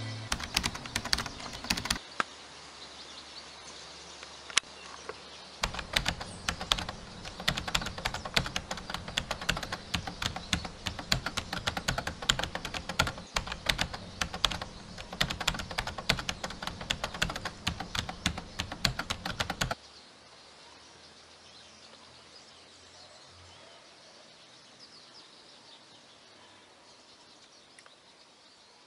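Rapid typing keystrokes, a dense run of clicks over a low hum: a short burst at the start, then a long run from about six seconds in that stops suddenly near twenty seconds, leaving only faint outdoor ambience.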